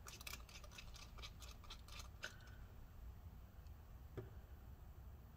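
Faint clicking and ticking of a 0.8 pentalobe precision screwdriver working the tiny screws out of a MacBook Pro's metal case: a quick run of clicks in the first two seconds, then a few scattered ones.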